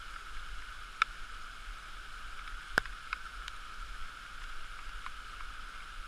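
Steady muffled rushing of a stream cascading over rocks, heard through a waterproof camera housing, with a few sharp clicks, the loudest about three seconds in.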